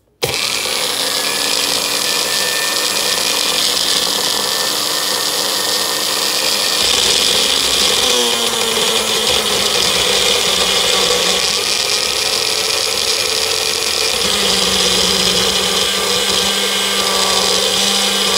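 Personal bullet-style blender switching on and running steadily, blending mint leaves, cumin and yogurt into a drink mixture. The motor's hum drops in pitch in two steps, about eight seconds in and again about fourteen seconds in.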